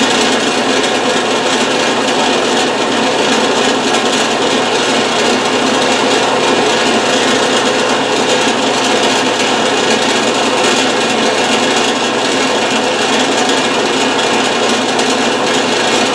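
Electric power tool running steadily while working a wooden casting pattern.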